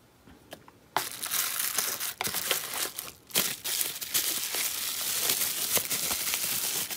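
Plastic bubble wrap crinkling and crackling as hands handle and unwrap it. It starts about a second in and keeps going, with a brief pause a little past the middle.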